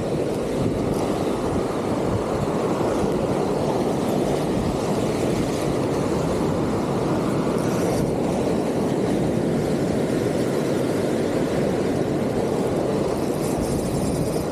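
Steady rush of sea surf at the shoreline, an even, unbroken wash of noise.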